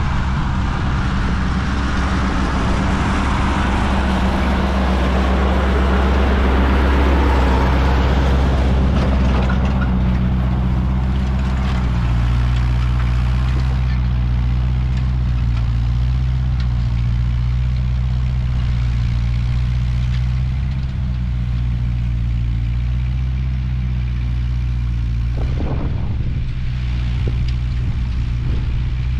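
Ford 8N tractor's four-cylinder flathead engine running steadily, its note shifting slightly about twelve seconds in, with a short clatter near the end.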